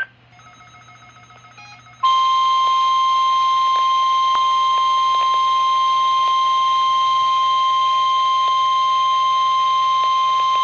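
NOAA Weather Radio warning alarm tone: a single loud, steady 1050 Hz tone that starts about two seconds in, after a short stretch of faint radio noise. It is the tone that switches on weather-alert receivers, sent here as a test.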